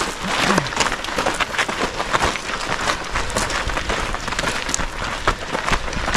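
Quick, irregular footsteps of a trail runner on a rough mountain path, a rapid patter of sharp scuffs and crunches, with a low rumble setting in about halfway through.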